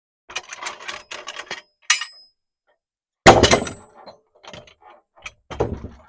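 Heavy sawn wooden boards being handled and set down: a run of light wooden knocks and clatter, then a heavy thump about three seconds in and another just before the end.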